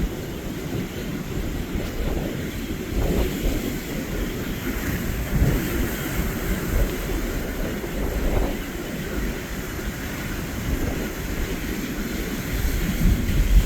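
Strong wind buffeting the microphone: a loud low rumble that swells and eases with the gusts.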